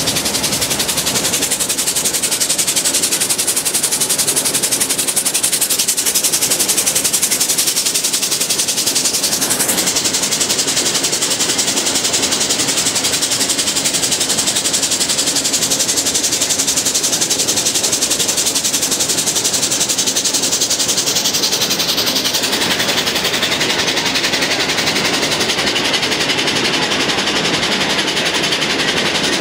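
Mount Washington Cog Railway train running up the mountain: a steady, rapid clatter mixed with hiss.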